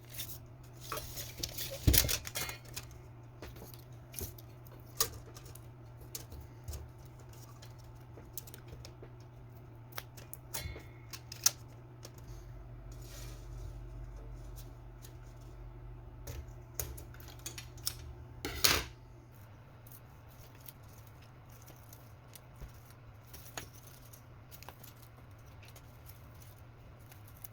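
Light clicks, taps and small metal clinks of hand work with tools and hardware, over a steady low hum. There is a sharper knock about two seconds in and a brief louder burst of noise shortly before the end of the busier part.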